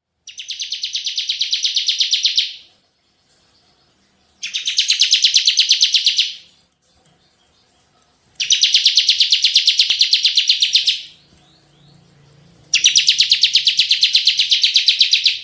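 Bar-winged prinia (ciblek) singing its rapid-fire 'tembakan' song: four long, fast trills of sharp repeated notes, about eight notes a second. Each trill lasts about two to two and a half seconds, with pauses of about two seconds between, and the first trill swells in loudness.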